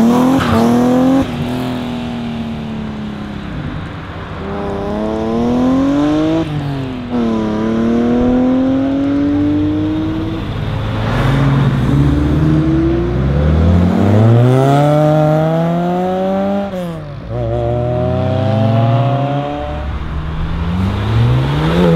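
Several performance cars accelerating hard away, one after another, among them a BMW E36 coupe and a Porsche 911 Turbo. Each engine note climbs through the revs and drops sharply at every upshift, in repeated pulls lasting a few seconds each.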